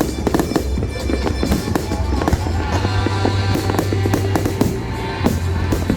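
Fireworks bursting, with a rapid run of bangs and crackles, over loud background music with a heavy bass.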